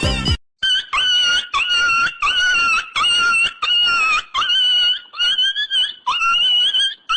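A comedy sound effect of short high-pitched squeaks repeated about twice a second, each one sliding up sharply at the start and then holding its pitch.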